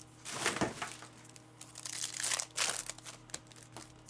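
Trading card pack wrappers crinkling and tearing in a few bursts as packs are ripped open.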